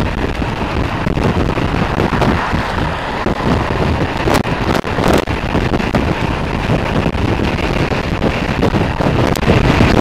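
Heavy, gusty wind noise on the microphone of a motorcycle riding at motorway speed in a strong wind: a steady rush with no clear engine note, broken by a couple of brief clicks about halfway through.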